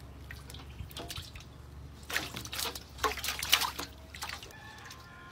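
Live fish thrashing in shallow water in a stainless steel bowl: two short spells of splashing, the louder about three and a half seconds in, with light drips between.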